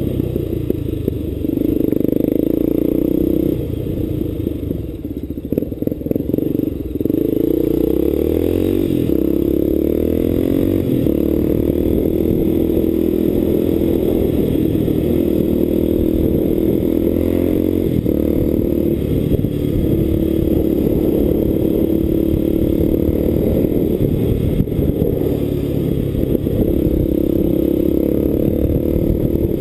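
Motorcycle engine running under way, its pitch shifting up and down in steps as it changes speed, with a brief easing off a few seconds in.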